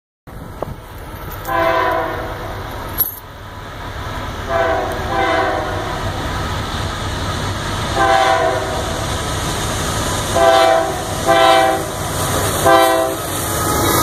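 Union Pacific diesel locomotive's air horn sounding six blasts: two longer ones, a shorter one, then three short blasts in quick succession. A steady low rumble of the approaching train runs underneath.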